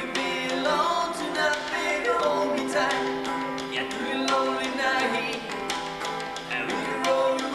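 Acoustic guitar with singing: an unplugged rock song, the guitar holding steady chords under a melody that bends and slides.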